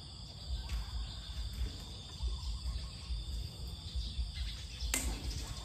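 Insects buzzing steadily in high, even tones, over an uneven low rumble, with one sharp click about five seconds in.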